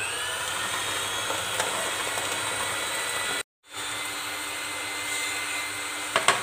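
Electric hand mixer running steadily, its beaters whisking eggs and sugar in a glass bowl. The sound cuts out for a moment a little past halfway and then carries on, and a few sharp clicks come near the end.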